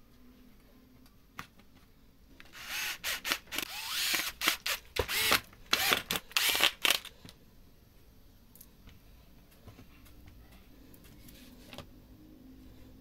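Cordless drill-driver running in a quick series of short stop-start bursts, its motor pitch rising and falling, as it works into the board. The bursts stop about halfway through, leaving only faint handling clicks.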